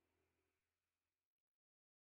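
Near silence: a pause between calls, with nothing audible.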